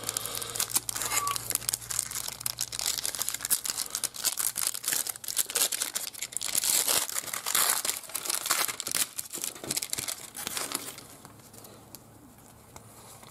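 Foil wrapper of a trading card pack crinkling and tearing as it is opened and handled, a dense crackle that dies down about eleven seconds in.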